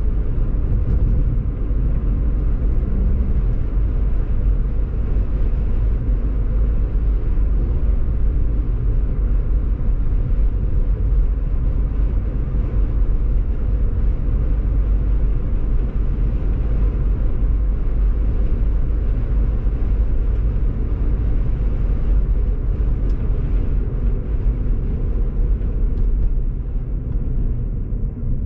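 A car driving on a dry paved road: steady low rumble of tyre and road noise, easing a little near the end.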